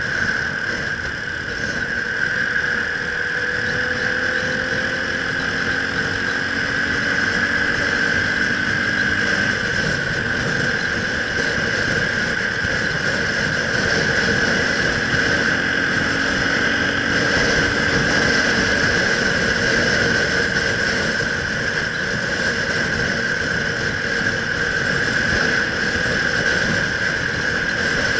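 A motorcycle cruising at a steady road speed: engine and wind noise, with a steady high-pitched whine over it. Fainter lower engine tones shift in pitch a few times.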